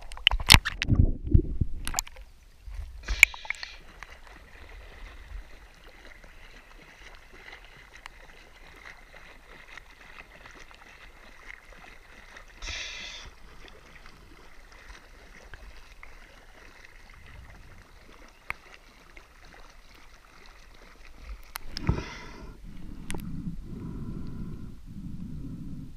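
Water splashing and lapping around a waterproof action camera held at the lake surface, with several sharp splashes in the first few seconds and a quieter steady wash after. Near the end there are more splashes as the camera goes under, then muffled low underwater rumbles.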